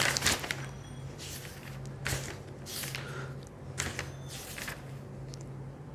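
Half a dozen short rustles, the first the loudest, over a low steady hum: handling noise such as paper or clothing moving close to a lapel microphone.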